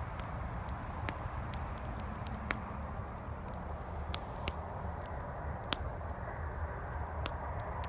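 Campfire crackling: burning wood gives scattered sharp pops, irregularly spaced, over a steady low rumble of highway traffic.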